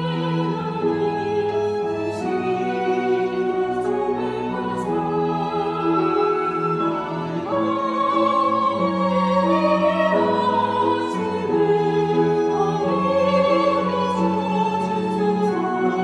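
Small mixed choir singing a slow hymn, accompanied by violins and a cello, with long held notes.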